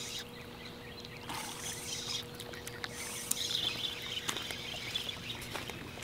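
Spinning reel cranked in short spells as a small river catfish is reeled in on a light rod, with a few clicks and a faint steady hum underneath.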